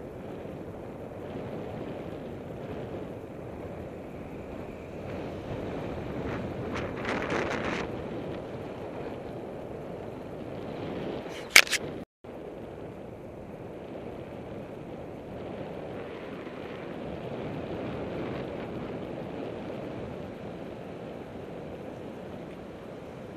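Steady wind rush on the microphone of a camera mounted on a moving bicycle, with tyre and road noise. A few light clicks about a third of the way in, and a sharp double click about halfway, just before the sound cuts out for an instant.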